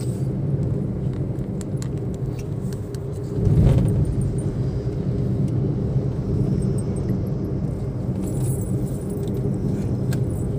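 Cabin noise of a moving Suzuki car: a steady low engine and road rumble, swelling louder for a moment about three and a half seconds in, with light scattered clicks and rattles.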